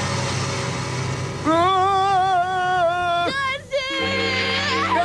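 Eerie background music, then about one and a half seconds in a long, loud, wavering scream of fright that breaks off about three seconds in; a second scream starts near the end over a low held chord.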